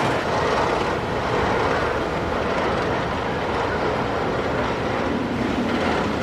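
Roller coaster train being hauled up a chain lift hill, with a steady mechanical clatter from the lift chain and the train on the track.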